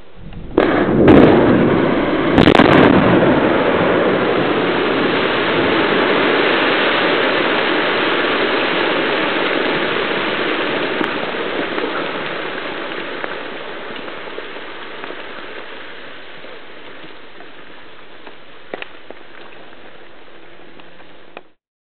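Quarry blast in a limestone and dolomite face: sharp detonation reports about half a second, one second and two and a half seconds in, followed by a long rumble of blasted rock tumbling down the face that slowly fades. The sound cuts off suddenly near the end.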